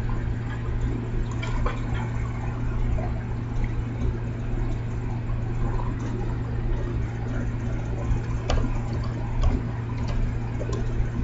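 Steady low hum and hiss of microphone background noise, with a few faint clicks scattered through it.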